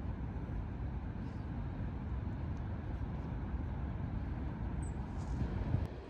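Strong wind buffeting the microphone: a steady low rumble of wind noise.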